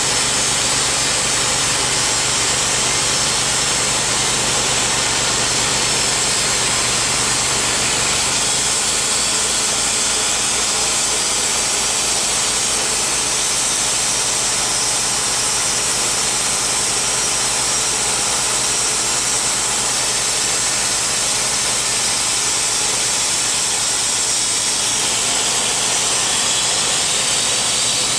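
Engine of a Timberking B-20 portable bandsaw mill running steadily with a constant high hiss, the band blade still cutting through a white oak log at the start. About eight seconds in the deep drone drops away and the mill runs on.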